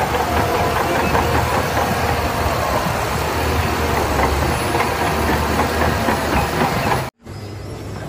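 Shantui crawler bulldozer's diesel engine running under load as it pushes a pile of wet sand, with a steady low hum under a broad hiss. It cuts off abruptly about seven seconds in, giving way to a quieter machine sound.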